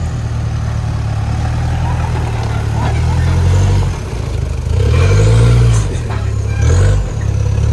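Toyota Land Cruiser Prado engine revving under load as the 4x4 climbs a slippery dirt slope, the revs rising and falling as the throttle is worked, most sharply about five seconds in and again near the end. A couple of short knocks come near the end.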